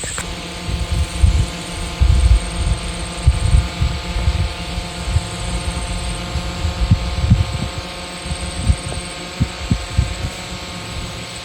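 Steady engine hum that sets in sharply at the start, with irregular low rumbles of wind buffeting the microphone.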